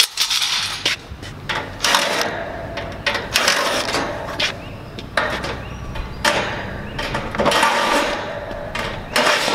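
Thin sheet-metal grille panels of an outdoor AC condenser unit being worked loose and pulled off, with repeated clanks, rattles and scraping of metal on metal.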